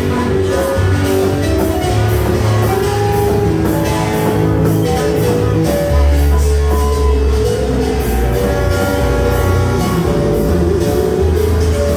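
Praise and worship music with a strong bass line, guitar and a steady drum beat.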